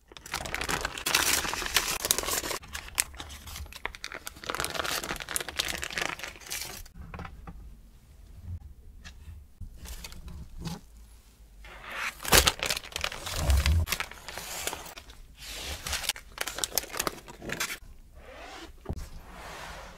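Baking parchment crinkling and tearing as it is peeled away from a freshly baked chocolate sponge sheet, in repeated rustling bursts.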